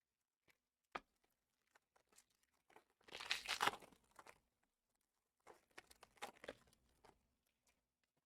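Trading card packaging torn open and crinkled: a click about a second in, then a loud tear lasting about a second, and a second stretch of crinkling a couple of seconds later.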